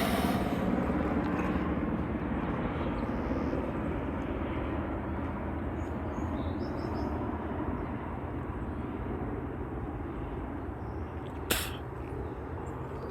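Steady outdoor background rumble and hiss. A few faint high notes come about halfway through, and a single sharp click comes near the end.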